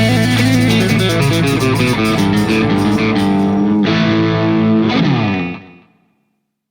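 Rock music led by electric guitar, ending on a last chord that fades out about five and a half seconds in.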